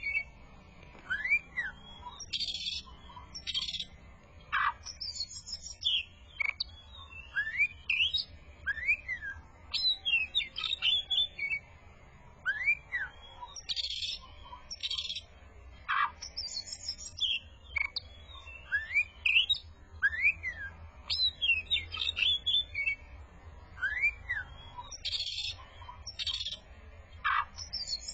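Oriental magpie-robin (kacer) in full, busy song: a varied run of rising-and-falling whistled notes, sharp high chips and harsh buzzy bursts, with similar phrases coming round every few seconds.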